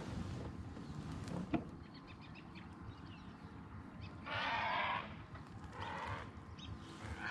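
An animal calls twice, harsh and hoarse: a longer call just past four seconds in and a shorter one about six seconds in. Under it runs a low rumble, with one sharp click about a second and a half in.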